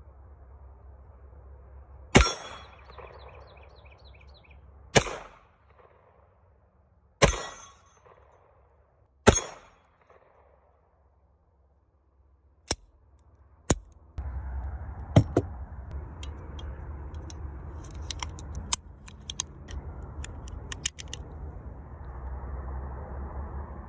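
A handgun fired four times, a deliberate shot every two to three seconds, each with a short echoing tail. Two sharp metallic clicks follow, then steady background noise with small clicks of handling.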